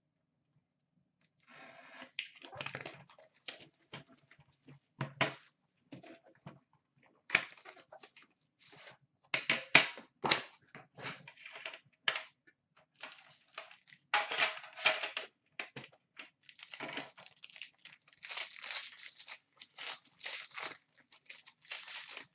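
A sealed hockey card box and its pack wrapper being torn open by hand: cardboard and plastic wrapping ripping and crinkling in uneven bursts with short sharp clicks, starting about a second and a half in.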